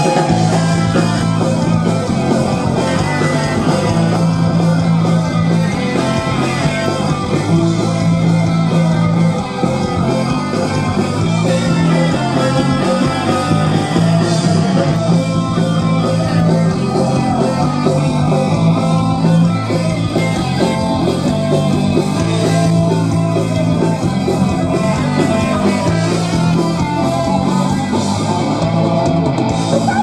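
A heavy metal band playing live at high volume: distorted electric guitars over a driving rhythm section.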